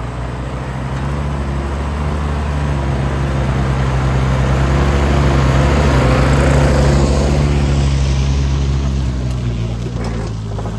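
Polaris Sportsman ATV running together with the small gas engine of the log trailer's hydraulic power pack as they pull a heavy load of logs past, growing louder to a peak about six seconds in and then fading. A few sharp clicks near the end.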